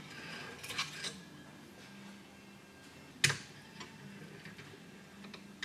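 Rifle cleaning rod and jag being handled and run into the barrel for a second patch: light rustling and small metallic clicks in the first second, then one sharp click a little over three seconds in, with a few faint ticks after.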